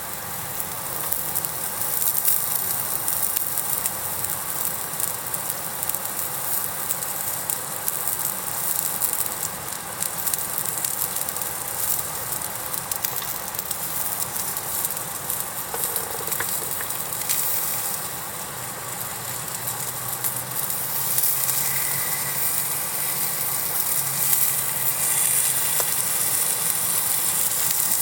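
Food sizzling on a hot iron griddle over a fire: a steady frying hiss with small crackles and pops throughout.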